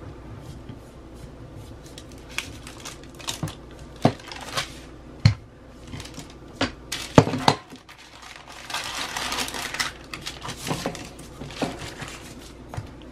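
Rolling pin working dough on parchment paper: scattered knocks and clacks of the pin against the counter, with paper rustling. A longer stretch of rustling comes about nine seconds in.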